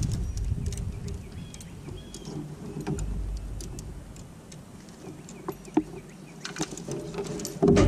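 Scattered light clicks and knocks of fishing gear being handled in a plastic fishing kayak, over a low wind rumble on the microphone that fades through the middle and comes back louder near the end.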